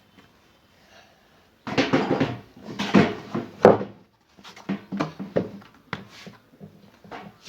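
Irregular knocks and scraping from washing machine parts being handled during repair: a dense clatter for about two seconds, then a string of separate knocks about half a second apart.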